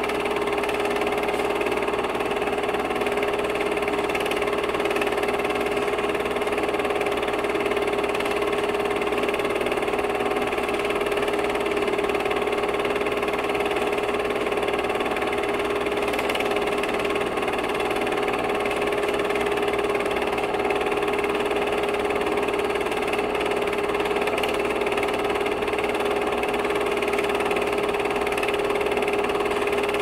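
16 mm film projector running: a steady mechanical whir with a constant pitched tone and a fast, even flutter beneath it, unchanging throughout.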